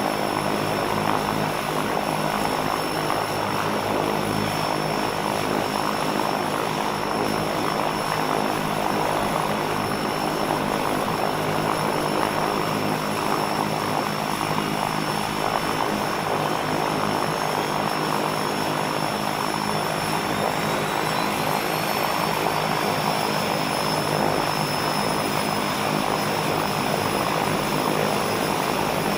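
Twin Beechcraft King Air PT6A turboprop engines idling steadily, heard from outside: a propeller drone under a constant high turbine whine. In the second half, faint whines climb slowly in pitch.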